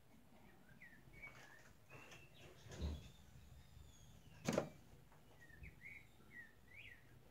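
Faint, short, high chirps recurring throughout, with two louder knocks, one about three seconds in and one about four and a half seconds in.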